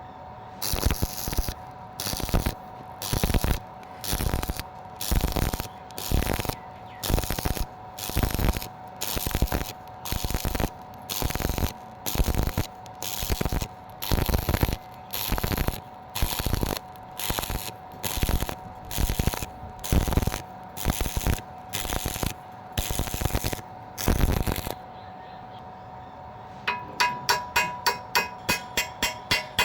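Stick-welding arc crackling in short bursts at about one a second, struck and broken over and over, as in the intermittent technique used to weld thin metal, with a faint steady whine underneath. The bursts stop near the end and music with a quick plucked beat starts.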